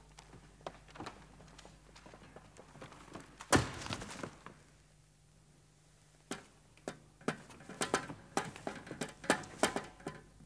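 One heavy thump about three and a half seconds in, then from about six seconds a run of sharp, irregular taps and knocks, typical of movement on a wooden stage floor.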